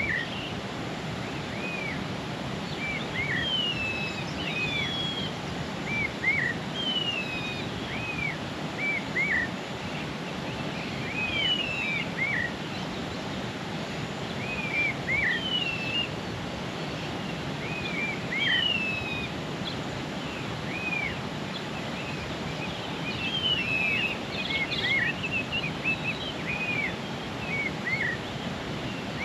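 A bird singing: short arched and downward-sliding whistled notes in small groups every couple of seconds, over a steady outdoor background hiss.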